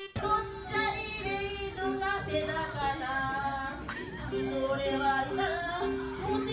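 A woman singing a melody to a ukulele, its plucked notes repeating in an even pattern.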